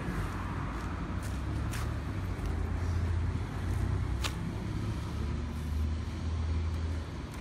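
Shindaiwa EB240 engine blower's small two-stroke engine idling with a steady low rumble. A few light clicks sound over it, about a second in, near two seconds and past four seconds.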